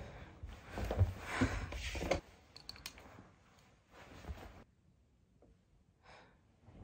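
Soft rustling of bedding and a few light clicks during the first two seconds or so as someone moves in bed, then near silence with a few faint brief rustles.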